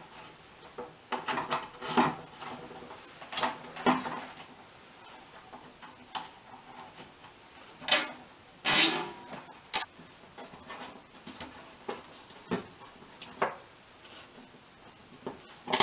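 Red wire fishing-rod holder being zip-tied onto a wood-framed board: scattered knocks and rubs of handling, with a couple of short rasps, loudest about eight to nine seconds in, as the plastic zip ties are pulled tight.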